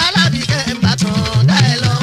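Fuji music playing: a percussion-led band with a deep line stepping up and down in a steady rhythm and higher tones sliding up and down above it.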